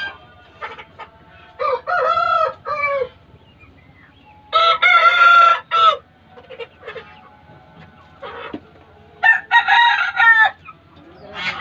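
Aseel roosters crowing three times, about two, five and ten seconds in, each crow a second or so long and the middle one the loudest, with soft clucks between.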